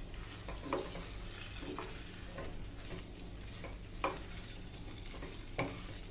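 A silicone spatula stirring and turning steamed rice dumplings in a kadai with hot oil and spices, over a steady low sizzle, with a few soft knocks and scrapes against the pan, the clearest about four seconds in.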